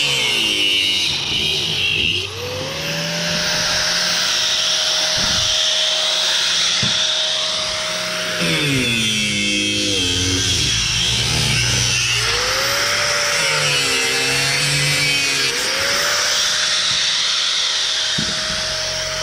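A power saw cutting through copper scrap. The motor runs at a steady high whine and twice in the middle slows sharply under load before speeding back up, with a hiss of cutting throughout.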